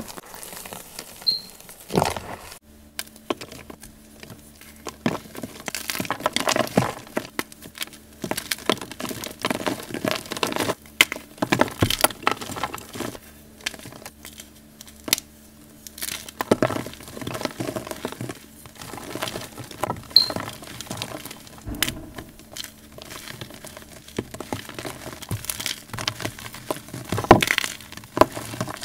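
Fingers crushing and crumbling blocks of soft gym chalk: a run of dry crunches and crackles that come in clusters, with a faint steady hum underneath after a short cut about two and a half seconds in.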